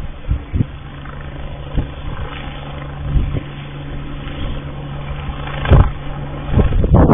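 Agusta helicopter's turbine and rotor running as it lifts off and hovers, a steady low hum. Irregular low thumps come on top, strongest shortly before the end.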